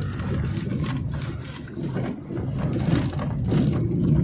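Vehicle engine running steadily under a fast, uneven mechanical rattle.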